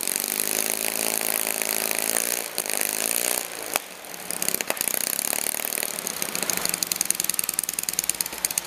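Harley-Davidson Knucklehead V-twin engine of the 1961 Von Dutch Rocket Car running, revved for the first few seconds, then dropping back about halfway through to an uneven, pulsing idle, with a couple of sharp pops as it settles.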